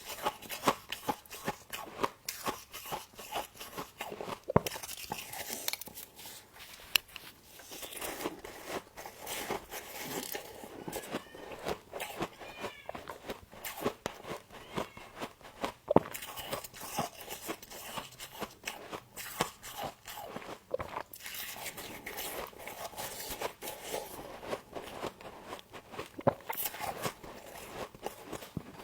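Close-up crunching and chewing of frost: dense, irregular crisp crackles and crunches as mouthfuls of ice frost are bitten and chewed.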